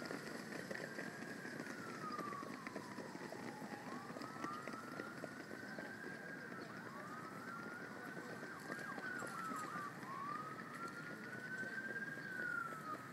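A siren wailing, its pitch rising and falling slowly four times, about three seconds each cycle, over a steady rush of outdoor background noise.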